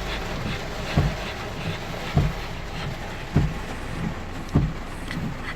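Car windshield wipers running inside the cabin, a short low thump at each turn of the stroke about every 1.2 seconds, over a steady hiss.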